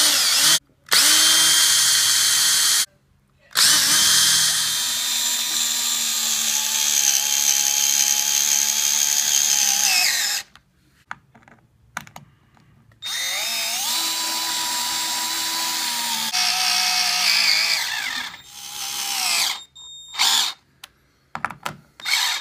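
Electric drill/driver running in several long bursts with a steady motor whine and short pauses between, driving hinge screws back into the holes plugged with glued wooden skewers.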